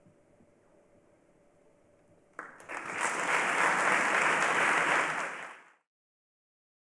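Audience applause breaks out suddenly after a hushed pause, about two and a half seconds in, and is cut off abruptly about three seconds later.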